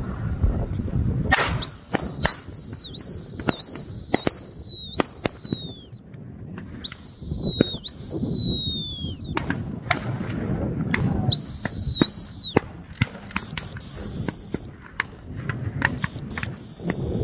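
Dog-training whistle signalling a retriever out on the water. It starts with a run of about six short pips that each drop slightly in pitch, then gives two pairs of longer toots, and ends with two long steady blasts. Sharp clicks come in between, one of them loud about a second in.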